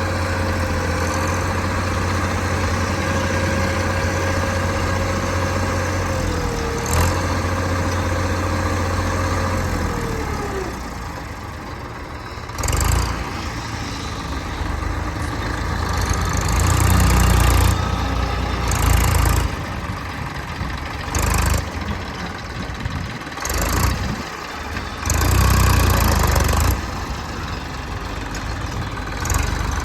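Diesel engine of a JCB 3DX backhoe loader running steadily, with a steady whine that slides down in pitch and stops about ten seconds in; after that, loud surges come and go every couple of seconds.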